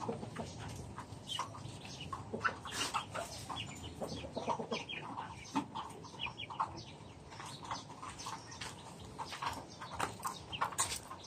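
Chickens clucking quietly in short, scattered calls, mixed with a few light ticks.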